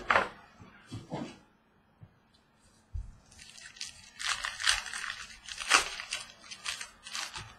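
Foil trading card pack being torn open by hand, the wrapper crinkling and tearing in several short bursts from about three seconds in.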